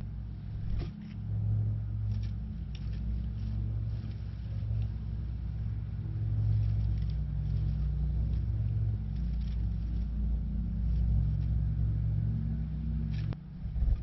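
Lawnmower engine running steadily, a low rumble that drops away suddenly near the end, with a sharp knock just after.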